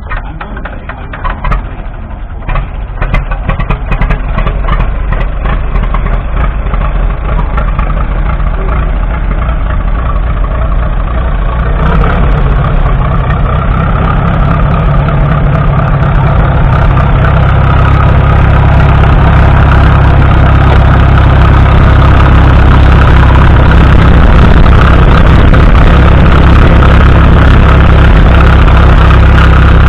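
1950 Fordson Major E27N's 4.4-litre four-cylinder TVO engine, crank-started by hand, catching with uneven firing over the first few seconds, then running steadily at idle. It grows louder at about twelve seconds in.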